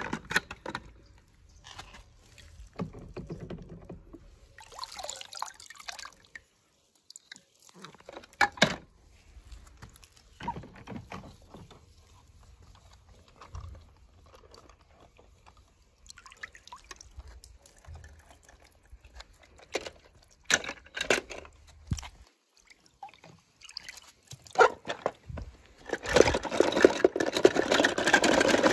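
Water sloshing and dripping as a toy die-cast car is dipped and swished under water in a tub, with scattered small knocks. Near the end a louder, busier clatter of toy cars knocking together in a plastic bucket.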